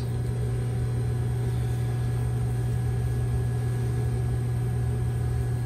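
Electric sewing machine running steadily as it stitches a seam.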